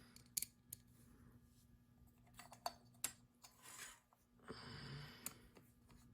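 Faint handling noise from small parts being worked by hand: a few sharp, scattered clicks and a soft rustle about two-thirds through.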